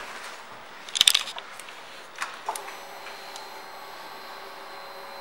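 Motorcycle ignition key jangling and clicking about a second in, then a click as the ignition comes on and a steady electrical whine starts, typical of the 2015 Yamaha FJ-09's fuel pump priming while the dash runs its start-up check.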